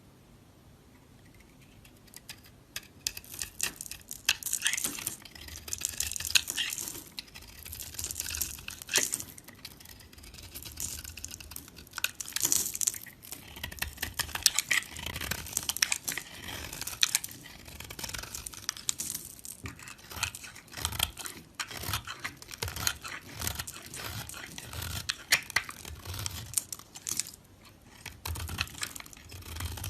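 Dry soap being cut with a knife: dense, irregular crisp crunching and crackling with sharp clicks and soft low knocks, starting about two seconds in.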